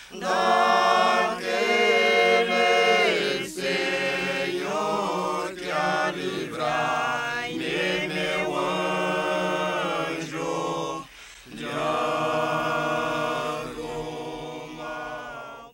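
Unaccompanied voices singing a slow, chant-like choral piece in held notes, with brief breaths or pauses about three and a half and eleven seconds in.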